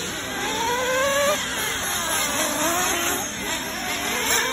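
Several radio-controlled off-road race cars' motors whining, overlapping pitches rising and falling as the cars speed up and slow down around the track.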